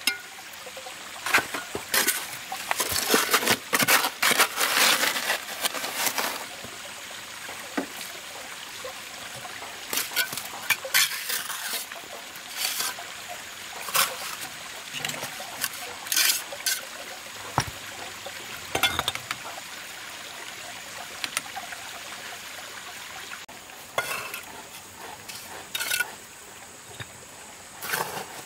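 Steel bricklayer's trowel scraping and spreading wet cement mortar on clay bricks, with sharp taps and clinks as bricks are set in place. The scraping runs longest and loudest a couple of seconds in; the rest is scattered short scrapes and knocks.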